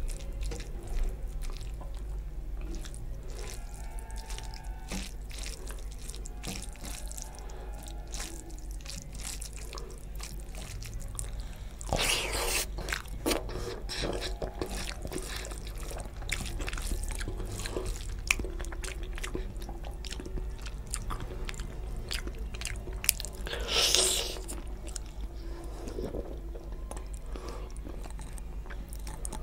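Close-miked eating sounds of rice and tilapia curry eaten by hand: wet chewing and lip smacks in a dense run of small clicks. Two louder, longer wet bursts stand out, about twelve seconds in and again near twenty-four seconds.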